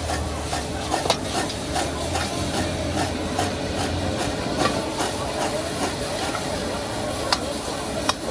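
Stir-frying in a wok: a steady sizzle of food in plenty of hot oil, broken by a few sharp clacks of the metal spatula against the pan.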